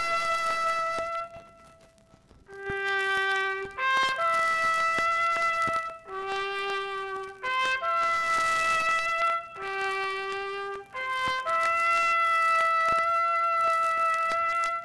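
A lone trumpet playing a slow melody of long held notes: the first note fades out about a second in, and after a short gap come phrases of long notes with brief breaks, ending on a long held note.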